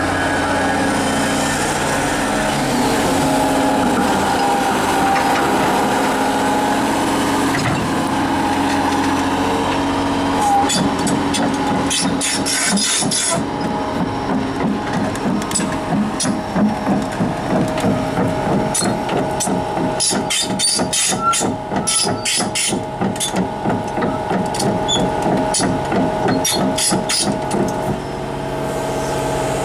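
Daewoo S370LC crawler excavator's diesel engine running steadily. From about ten seconds in, a long run of sharp metallic clanks and knocks is heard over the engine, pulsing unevenly until near the end.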